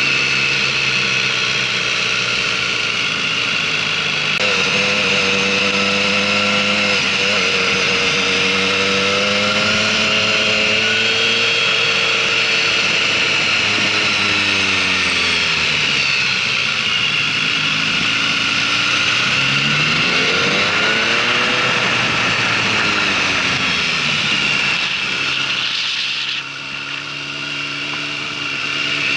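Motorcycle engine riding a lap of a tight track, heard from a camera on the following bike: the engine note rises and falls several times as the rider opens and closes the throttle through the corners, over a steady rush of wind.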